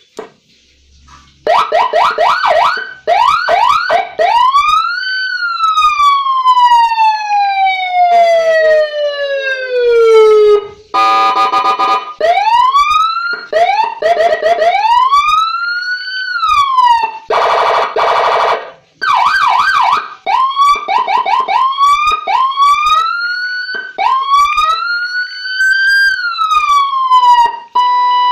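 80-watt 2-in-1 electronic siren sounding loudly, starting about a second and a half in. It runs through its patterns: bursts of quick rising yelps, long wails that climb and then fall slowly, and short blasts of a steady horn-like blare.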